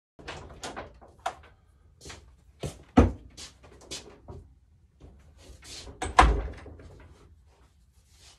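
Knocks and clatter of someone moving about and handling things in a home garage workshop. Two heavy, deep thumps stand out, about three seconds in and again about six seconds in.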